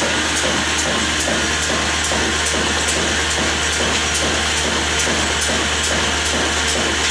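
Fazal 22 hp old stationary diesel engine running steadily at its slow rated speed, a low drone with sharp mechanical ticks from the valve and injection gear about twice a second.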